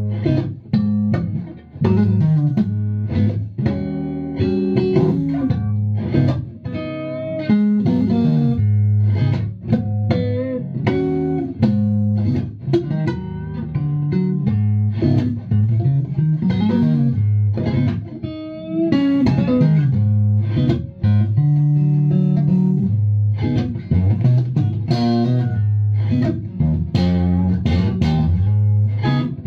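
Fender Stratocaster electric guitar played through a PRS HX 100 amplifier head and a PRS HDRX 4×12 speaker cabinet: a continuous run of single-note lines and chords, with a few notes bent in pitch.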